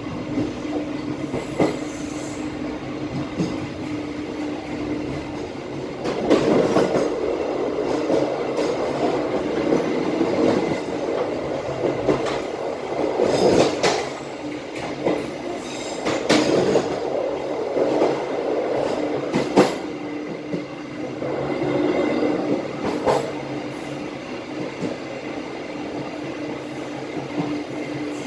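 KA Bengawan passenger train running on the rails: a steady rolling rumble with a hum underneath, and wheels clacking sharply over rail joints and turnouts several times. The rumble grows louder about six seconds in.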